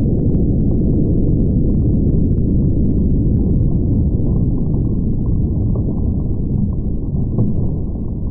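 Slowed-down sound of a .500 Nitro Express elephant-rifle shot and its impact on an armor plate and cinder block, stretched into a deep, continuous low rumble with faint crackles. It eases a little near the end.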